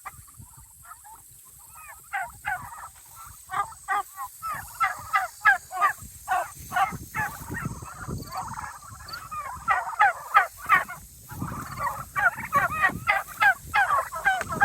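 A flock of pasture-raised turkeys in a portable pen calling, with many short, overlapping yelping calls. The calls are sparse at first and become a dense, busy chorus after about two seconds.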